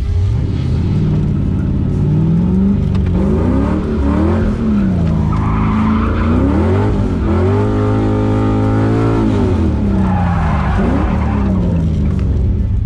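LS V8 engine of a swapped Mazda Miata NB revving up and down repeatedly through a drift, heard from inside the cabin. Tyres squeal as the car slides, most strongly about five to seven seconds in and again around ten to eleven seconds.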